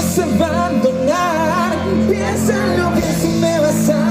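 Live band music: a wavering sung melody over a steady bass line, playing without a break.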